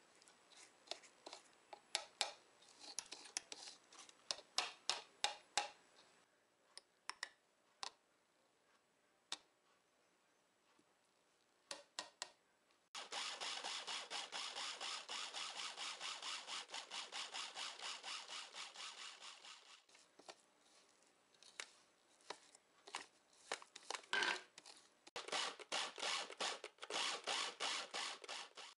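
Food processor grinding toasted sesame seeds into a paste: a gritty, rasping scrape of seeds against the blade and plastic bowl. It comes first as scattered scrapes and clicks, then as a steady run of rapid strokes from about 13 to 20 seconds in, and again near the end.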